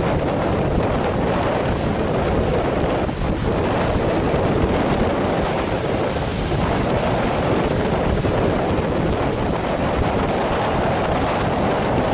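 Strong wind buffeting the microphone over a rough sea, with waves surging and breaking underneath. The noise is loud and steady.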